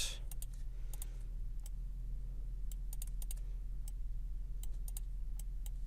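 Computer keyboard keystrokes and clicks, scattered and irregularly spaced, over a steady low electrical hum.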